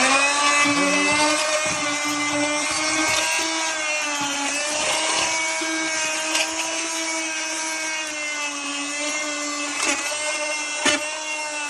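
Oscillating multi-tool running with a flexible scraper blade, scraping dried tile glue off a wall: a steady buzzing whine whose pitch wavers slightly as the blade bears on the glue, with two sharp clicks near the end.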